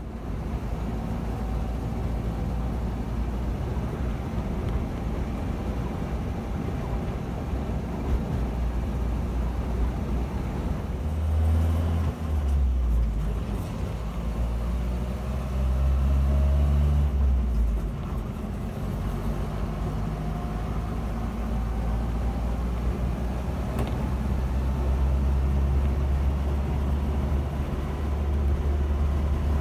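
1976 Land Rover Series 3's 2.25-litre petrol four-cylinder engine running through a newly fitted exhaust while driving: a steady low drone that grows louder twice, about 11 and 16 seconds in. With the holed old exhaust and manifold blow gone, it is still noisy but has more of an engine purr than an exhaust roar.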